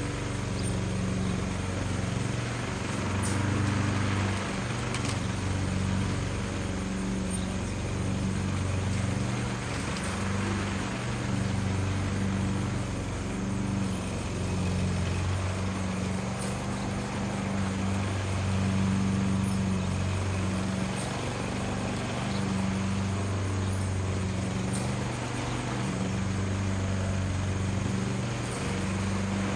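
A small engine running steadily, its note shifting up and down a little.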